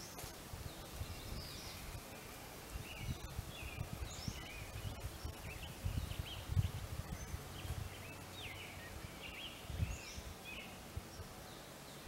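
Birds chirping: many short, quick calls throughout, with an uneven low rumble underneath.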